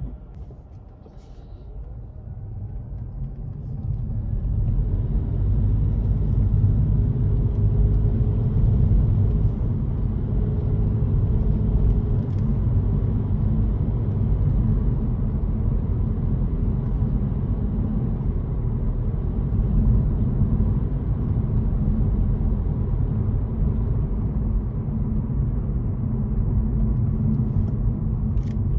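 Car driving on the road: low engine and road rumble that builds over the first few seconds as it picks up speed, then holds steady while cruising.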